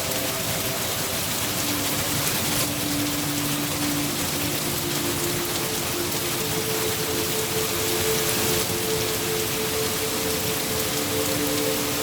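Steady rain falling on a surface, a dense even hiss of drops. Faint held low tones sit underneath and shift slowly.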